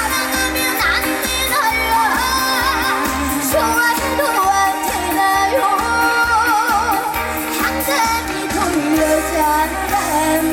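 A female trot singer sings live with heavy vibrato over backing music with a steady beat.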